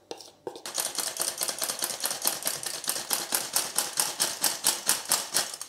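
Stainless-steel hand flour sifter being worked to sift flour: a fast, regular rasping tick of the sifter's wires scraping the mesh with each stroke of the handle, about five or six a second. It starts about half a second in and stops just before the end.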